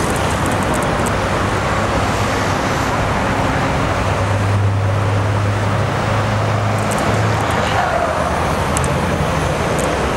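Boeing 737-800's CFM56-7B turbofan engines at takeoff thrust during the takeoff roll: loud, steady jet noise with a low hum that grows stronger for a few seconds midway.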